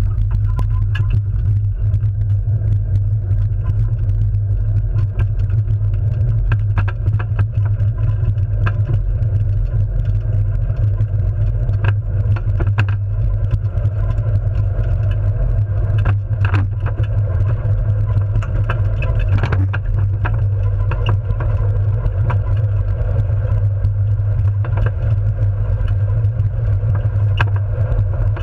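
Onboard a gravity-powered soapbox car running downhill on asphalt, with no engine: a steady low rumble of hard wheels on the road and wind on the microphone. It comes with frequent clicks and rattles from the chassis over bumps, and it starts abruptly as the car leaves the start ramp.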